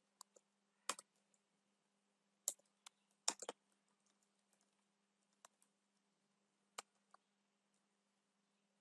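Keystrokes on a computer keyboard, a dozen or so separate clicks spread unevenly with long gaps and a quick run of keys about three seconds in. A faint steady low hum lies underneath.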